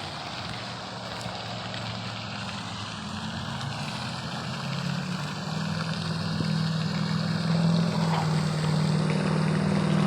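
A low engine drone that grows steadily louder from about three seconds in, like a motor vehicle approaching, over a steady rushing hiss.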